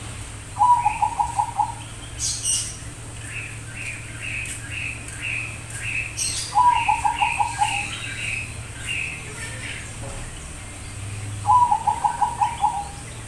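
Bangkok-type zebra dove (perkutut) cooing: three phrases of rapid staccato coos, each about a second long, coming about every five seconds.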